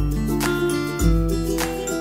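Background music with a steady beat of about two notes a second over deep bass notes.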